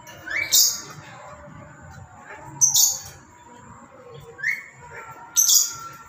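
Black-capped lory calling loudly: three shrill screeches a couple of seconds apart, two of them opening with a short rising note.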